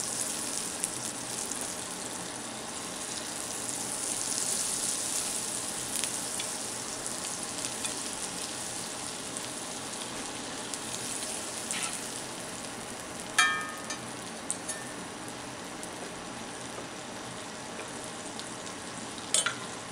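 Butter sizzling and foaming in a preheated cast iron skillet as it is spread around the pan. A sharp metallic clink rings out about two-thirds of the way through, and a short knock comes near the end.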